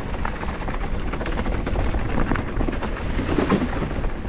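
Mountain bike rolling fast down a dirt singletrack: wind buffeting the microphone, with the tyres running over dirt and gravel and many small clicks and rattles from the bike.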